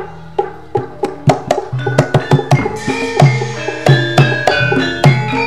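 Javanese gamelan accompaniment: a fast run of sharp struck-percussion hits and drum strokes over ringing metallophone notes, loud and unbroken, with a low steady hum beneath.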